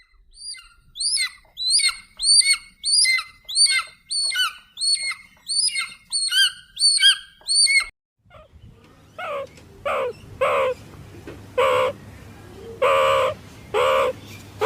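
A bird chirping in a quick, regular series of high calls, about two a second. After about eight seconds it stops, and after a short break a different animal gives repeated short cries, lower-pitched and arching up and down in pitch.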